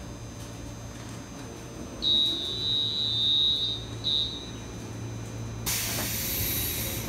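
Door-closing warning buzzer on a JR Shikoku 7200 series train: one steady high tone about two seconds in lasting under two seconds, then a short second beep. Near the end comes a loud burst of air hiss as the door mechanism acts to close the doors, over the standing train's steady low hum.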